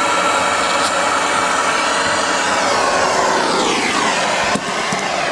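Plumber's soldering torch flame hissing steadily on copper pipe. About halfway through, a whistle-like tone falls in pitch over a couple of seconds.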